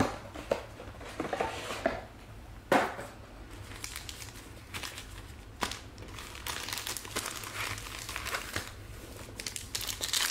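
Foil wrapper of a Select Euro 2020 soccer trading-card pack crinkling and tearing as it is opened by hand, with a single sharp knock about three seconds in.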